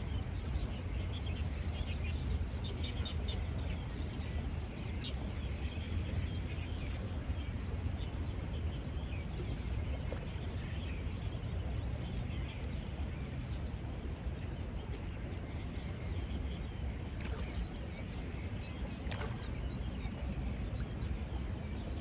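Steady outdoor ambience dominated by a low rumble of wind on the microphone, with a few faint bird chirps in the first few seconds.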